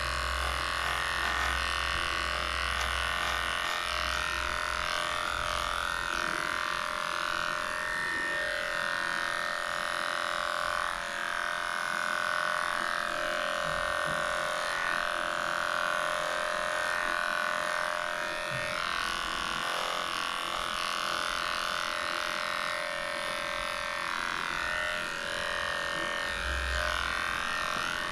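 Heiniger cordless animal clipper running with a steady hum as its blade shaves through a dog's matted coat.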